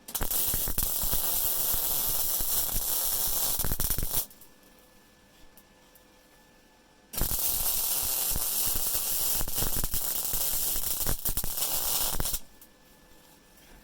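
MIG welding arc from a Rohr MIG-250MI inverter welder, crackling and spitting on 5.5 mm mild steel at low settings (power 3, wire speed 3). There are two runs, one of about four seconds and one of about five, each starting and stopping abruptly with a pause between them.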